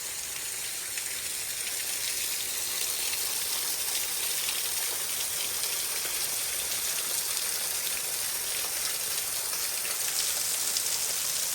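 Small waterfall splashing: a steady rushing hiss of falling water, bright and close, that cuts off suddenly at the end.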